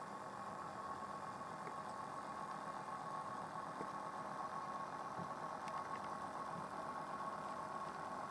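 HO-scale model diesel locomotive's DCC sound decoder playing a steady diesel idle through its small speaker, with a steady hum and a thin tone above it.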